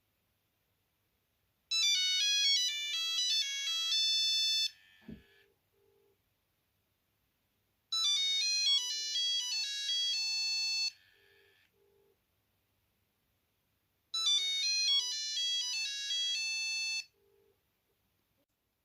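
Nokia 8210 mobile phone playing a monophonic ringtone: a bright, beeping electronic melody of about three seconds, repeated three times with a pause of about three seconds between each.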